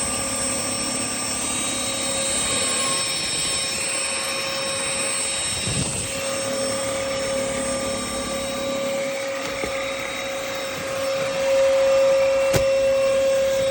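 VersLife S7 Plus cordless stick vacuum running: a steady motor whine over a high hiss. It gets louder about 11 seconds in, and there is a single click near the end.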